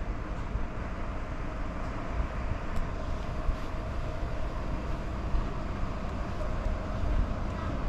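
Steady low rumble of vehicles, with a faint steady hum.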